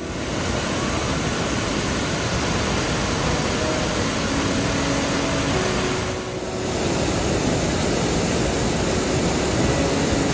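Steady roar of rushing water from the Mesa Falls waterfall, dipping briefly about six seconds in.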